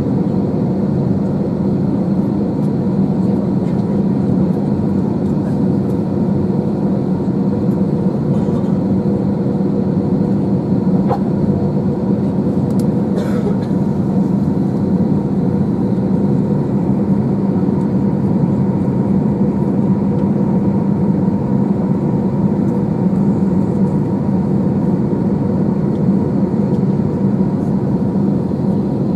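Steady cabin hum of an Airbus A321 waiting on the ground, a loud, even drone with a constant low tone and fainter higher tones.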